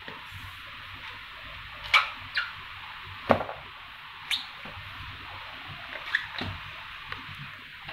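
Slide sandals slapping and clicking on a tiled floor as someone steps about: about half a dozen sharp, unevenly spaced slaps over a steady hiss.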